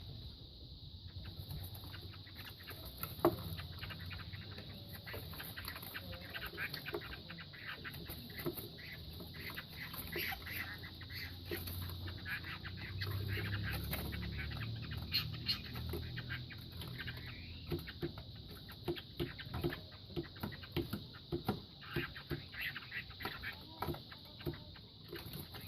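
Two gamecocks fighting: scuffling, wing flaps and strikes heard as many short, sharp knocks, coming thicker and louder in the second half.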